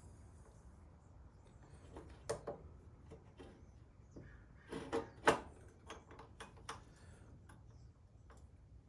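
Scattered light clicks and knocks of a motorcycle's rear brake caliper and metal parts being handled, with the sharpest knock about five seconds in.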